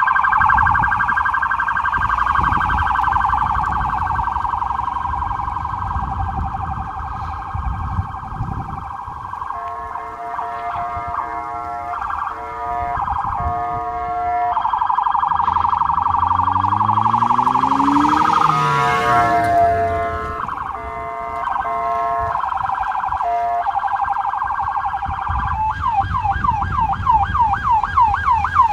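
Federal Signal SS2000 SmartSiren sounding and switching between tones: first a fast warble, then a horn-like tone in short chopped blasts alternating with steady wailing stretches, a quick upward sweep, and a fast sweeping tone near the end.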